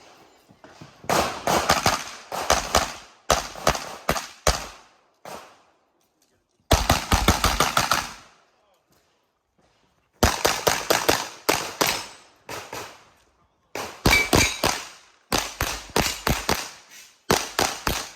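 Semi-automatic pistol shots fired in rapid strings of several shots a second, broken by brief pauses, with a silent gap of about two seconds near the middle.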